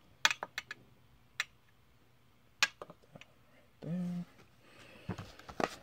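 Light sharp clicks and taps of a small metal enamel pin and plastic blister packaging being handled and set down on a glass shelf, with a soft plastic rustle near the end.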